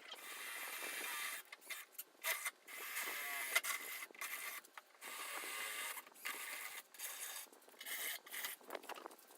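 Intermittent ripping and scraping in short bursts with brief pauses: masking tape being peeled off the car's paint.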